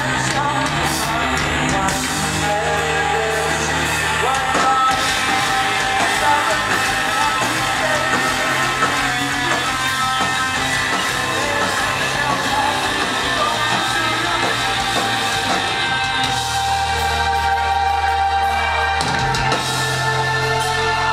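Live rock band playing loud through the club's PA: electric guitars, bass, drums and a singer, heard from inside the crowd.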